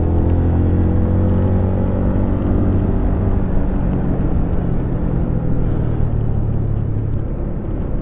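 Honda CB150 motorcycle's single-cylinder engine running steadily while riding, under a haze of wind and road noise; the engine note grows fainter toward the end.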